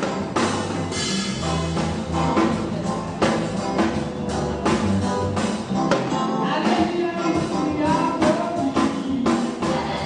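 Live church music: a choir singing with a band, drums keeping a steady beat under the voices.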